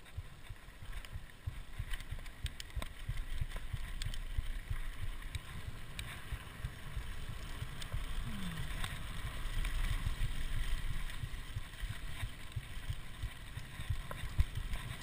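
Mountain bike rolling down a dirt singletrack: a steady low rumble of wind on the microphone and tyres on dirt, with frequent rattling clicks from the bike over the bumps.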